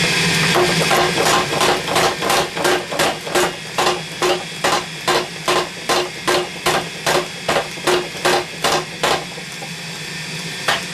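Hammer blows on a hot layered steel billet on an anvil, about three a second with a metallic ring, setting the forge weld. They stop about 9 s in, and one more blow falls near the end. A steady hum runs underneath.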